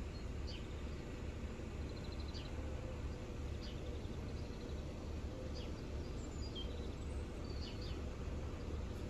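Outdoor ambience: a steady low rumble, with small birds giving short chirps and trills at irregular intervals.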